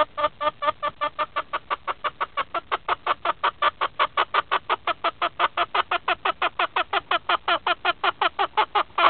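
A hen clucking rapidly and steadily, about six or seven clucks a second. It is the agitated fussing of a hen that wants to lay but is kept out of the nest box by another hen.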